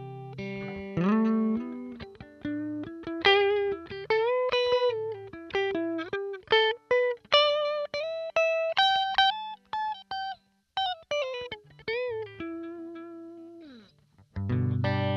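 1977 Aria Pro II electric guitar played clean, with no effects, through a modelled Roland JC-120 clean amp. It plays a single-note riff with string bends and vibrato, and a full strummed chord comes in near the end.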